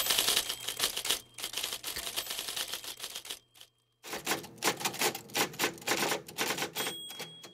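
Typewriter keys clattering in quick, dense strokes, with the typewriter's bell dinging a few times, the longest near the end. The typing stops for about half a second midway, then picks up again.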